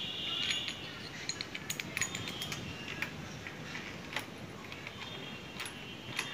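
Small metal parts clinking and tapping in the hands as an Allen key, bolt and bush are fitted into a motorcycle handlebar end: a string of light, irregular clicks. A high ringing tone sounds at the start and again near the end.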